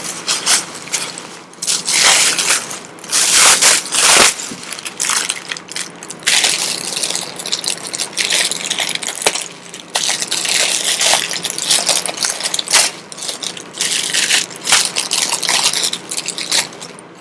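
Plastic packaging crinkling and rustling by hand in irregular bursts, with a few sharp clicks, as it is unwrapped.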